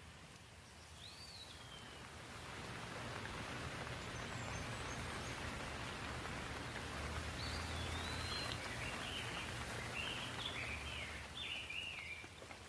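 Rain falling in a steady hiss that swells after a couple of seconds, with a low rumble underneath. Birds chirp over it, once near the start and in a run of short calls in the second half.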